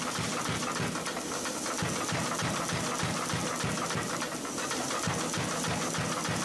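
Big Blu pneumatic power hammer striking a hot 1-inch round steel bar in rapid, even blows, drawing it down into a reverse taper.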